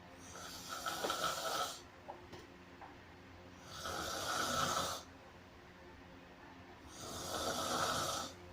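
Snoring: three long snores about three seconds apart, each swelling and then breaking off sharply.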